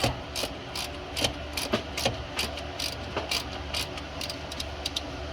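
Hand ratchet wrench clicking in short, uneven strokes of a few clicks a second while header bolts are tightened.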